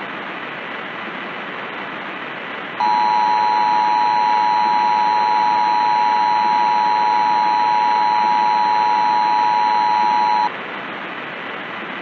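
Emergency Broadcast System two-tone attention signal: a steady dual tone starts about three seconds in, holds for nearly eight seconds, and cuts off sharply, announcing that an emergency message follows. A constant static hiss runs under it.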